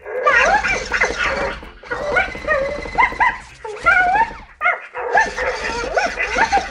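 Present Pets interactive plush puppy toys playing recorded puppy sounds through their speakers: quick yips, barks and whimpers in several bursts with short breaks between.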